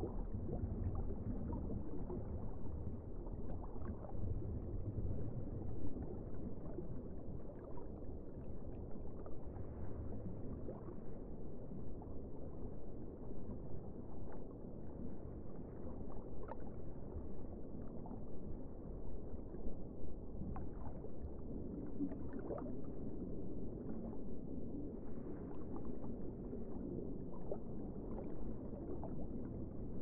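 Underwater ambience: a steady low rumble of moving water with faint scattered clicks.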